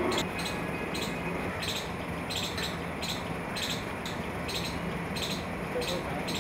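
Outdoor street ambience: a steady low background noise with short, high ticks or chirps repeating irregularly, about two a second.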